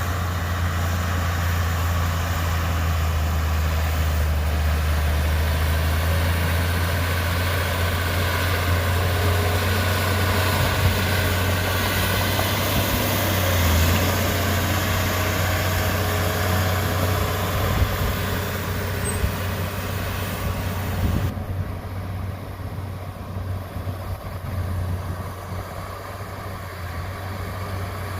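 Heavy diesel engine of earthmoving machinery running steadily with a deep, even hum. About three-quarters of the way through, the higher-pitched noise drops away suddenly and it grows a little quieter.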